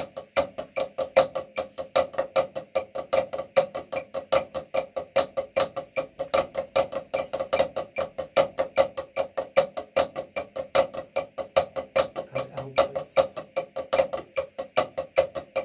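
Wooden drumsticks played on a drum practice pad by two players together in a Moeller-technique hand exercise. The strokes form a steady stream of about five or six a second, some louder than others.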